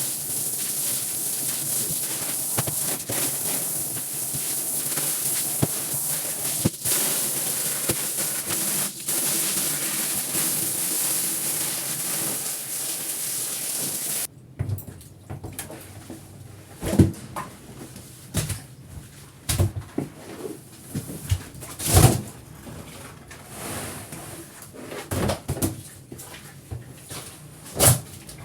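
Steady spraying hiss of water being sprayed onto a rug, cutting off abruptly about halfway through. Scattered short knocks and scuffs of handling follow.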